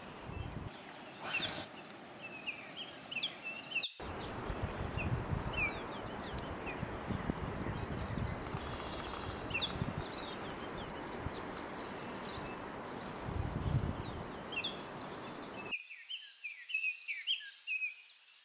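Outdoor ambience of many small birds chirping over a steady high insect buzz. For most of the middle a louder low rushing noise takes over, then stops abruptly, leaving the birds.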